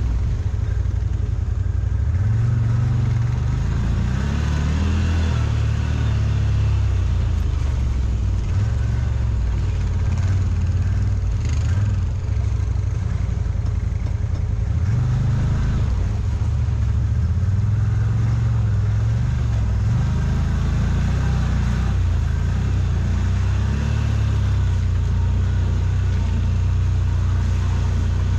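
CFMOTO ZForce 950 side-by-side's V-twin engine running while driving, its pitch rising and falling again and again as the throttle opens and eases off.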